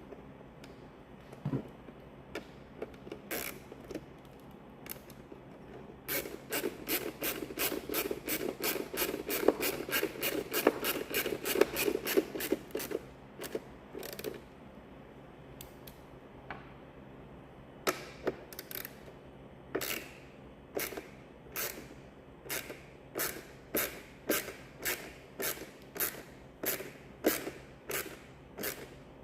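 Screws being driven by hand into a plastic instrument-cluster housing with a screwdriver: a fast run of clicks for several seconds, then a slower, even clicking of about one and a half a second near the end.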